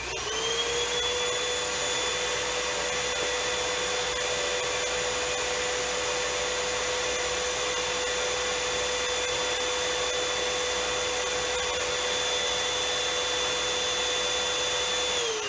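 Bissell Big Green Commercial Hercules Slim Vac stick vacuum switched on at low power, drawing air through an anemometer's paper cone for an airflow test. Its motor whine rises quickly to a steady pitch, holds for about fifteen seconds, then falls away as the vacuum is switched off near the end.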